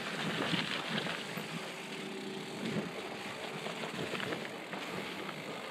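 Mountain bike rolling down a muddy, leaf-covered trail and out onto asphalt, with steady tyre and riding noise.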